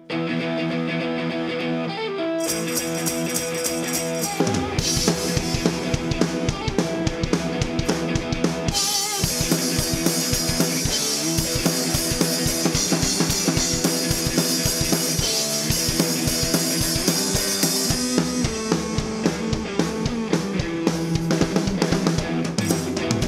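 A two-piece garage-rock band playing live. A Stratocaster-style electric guitar through a Marshall amp opens the song alone, cymbals come in after about two seconds, and the full drum kit with kick drum joins about four and a half seconds in.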